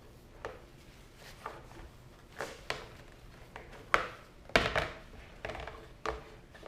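Irregular light clicks and knocks of a plastic dirt bike number plate being handled and cleaned, with a few louder knocks about four seconds in.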